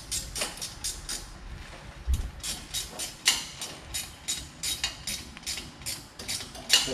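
Ratchet wrench worked in quick short strokes, clicking about three times a second with a few louder strokes, as a fastener on the exhaust is tightened.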